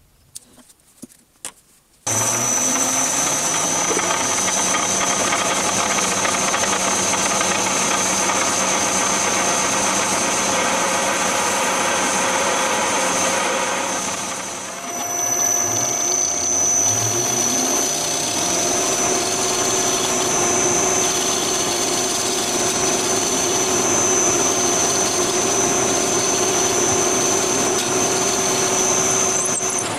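A few light clicks, then a metal lathe starts suddenly about two seconds in and runs steadily with a high whine while turning the arbor for a grinding-wheel motor. The sound dips and shifts briefly about halfway, then carries on until it stops near the end.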